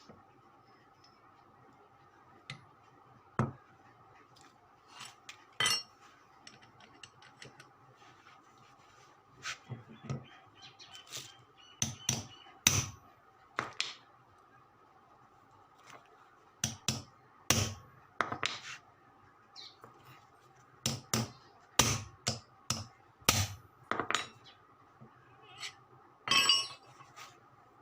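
Irregular sharp metallic knocks and taps of hand tools working on a washing machine motor during a bearing change, busier in the second half, over a faint steady hum.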